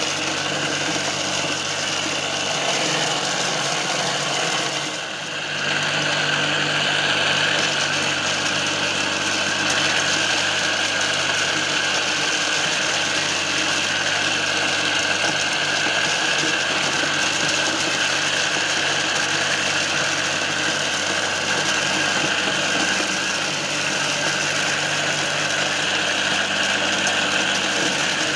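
Homemade mini corn sheller running steadily: a belt-driven electric motor salvaged from a water pump whirs while maize cobs are fed in and their kernels are stripped off, with a short dip in the sound about five seconds in.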